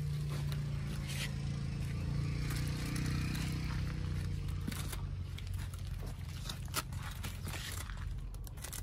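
Oyster mushrooms being picked by hand off plastic grow bags: scraping and rustling as clusters are pulled free, with scattered short clicks. A steady low hum runs underneath.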